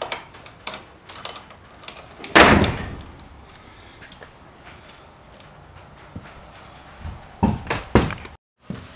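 Metal tools clanking and knocking against the front axle hardware of a Harley-Davidson Sportster 48 as the axle is worked loose. There are small clicks, one loud knock about two and a half seconds in, and a quick run of sharp knocks near the end.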